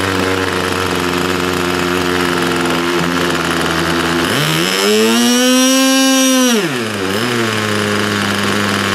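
Nitro engine of an AquaCraft RC boat idling steadily. About four seconds in it revs up to a high, steady whine, holds for about two seconds, then drops back to idle.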